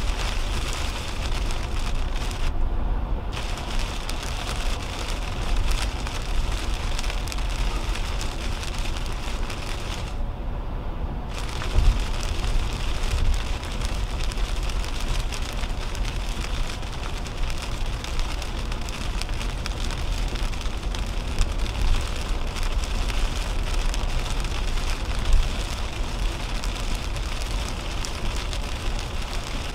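Heavy rain hitting a car's windshield and roof over a steady low tyre and road rumble from a 2010 Toyota Camry driving on a wet highway, heard from inside the car. The rain hiss drops out briefly twice, about three and ten seconds in, and now and then the windshield wiper sweeps across.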